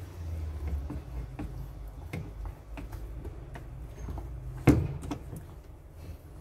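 Utensil stirring thick glutinous rice and red bean batter in a stainless steel bowl: irregular clicks and scrapes against the metal, with one louder knock about three-quarters of the way through.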